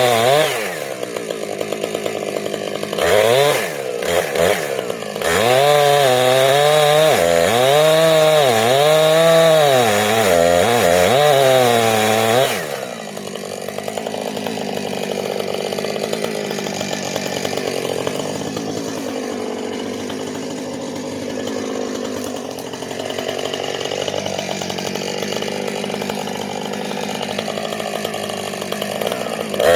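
Two-stroke gas chainsaw cutting into a dead ash tree, its engine pitch sagging and recovering over and over as the chain bites into the wood. About twelve seconds in, it drops back to lower, quieter running, then revs up high again right at the end.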